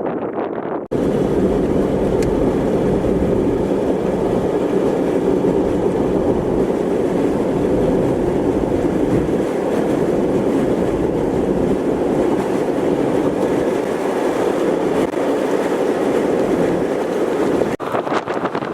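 Roar of a tornado's winds: a loud, steady rushing noise with the deep, unbroken train-like quality, starting abruptly about a second in and cutting off near the end.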